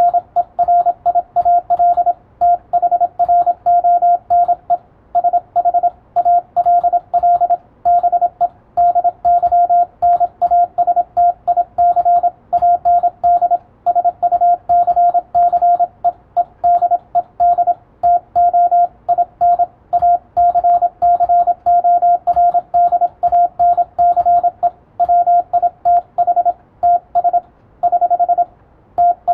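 Morse code sent in English as a single steady beep tone, keyed on and off rapidly in dots and dashes, copied by ear by a radiotelegraph operator. Faint keyboard tapping runs underneath as the code is typed out.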